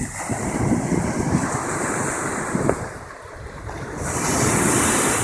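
Small sea surf breaking and washing up a sandy shore, with wind buffeting the microphone. A wave breaks close by about four seconds in and brings a louder, hissing rush.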